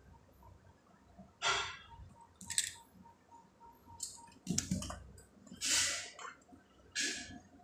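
A cat shifting and pawing at a fabric-covered sofa: several short scratchy rustles of claws and paws on cloth, with a few soft thumps about halfway through.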